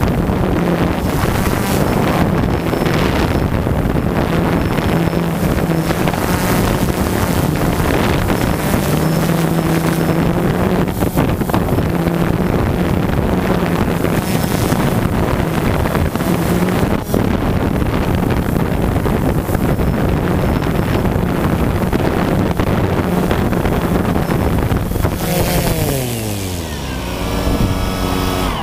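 DJI Phantom 2 quadcopter's motors and propellers buzzing loudly, heard from the camera mounted on the drone, with wind noise on the microphone. Near the end the pitch falls steeply as the motors spin down with the drone on the grass.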